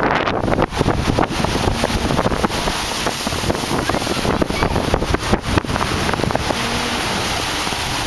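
Large lake waves breaking and splashing against breakwater boulders and a concrete pier edge, with wind buffeting the microphone.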